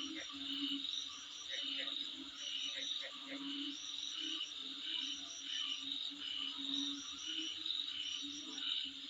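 Insects chirping in a steady chorus of short, high, repeated trills, with a lower pulsing call recurring about once a second underneath.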